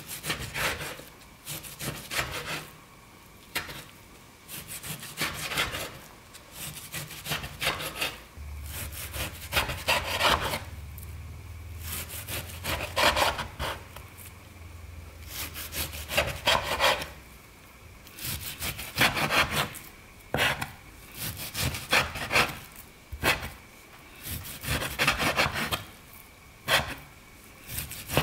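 Chef's knife slicing raw beef into thin strips on a wooden cutting board: the blade drawn through the meat and scraping the board, in repeated runs of strokes with short pauses between. A low hum sits underneath for several seconds in the middle.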